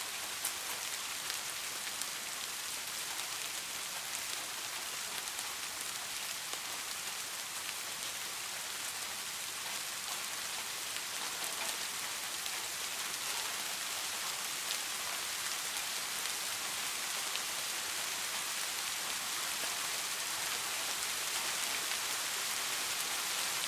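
Steady rain falling on a surface: an even hiss of many drops with scattered individual drop ticks.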